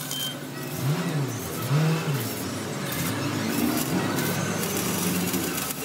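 Electric arc welding on a steel wheel rim, a steady crackling hiss as the centre disc is welded in. Under it an engine revs up and down twice, about a second in and again about two seconds in.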